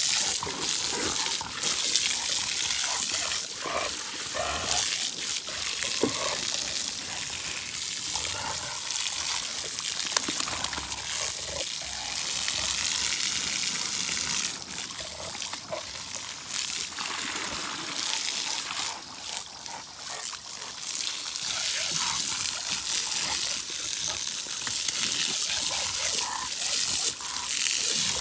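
Garden hose spraying water in a steady hiss over a dog and splashing into a plastic wading pool, with scattered splashes and knocks.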